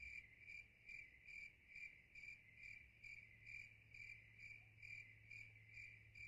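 Faint, steady chirping of a cricket, an even pulse about two and a half times a second.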